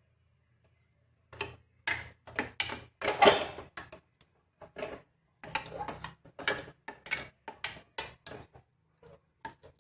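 A spoon stirring curdled milk in a cooking pan on the stove, scraping and clinking against the pan in quick, irregular strokes that start about a second and a half in.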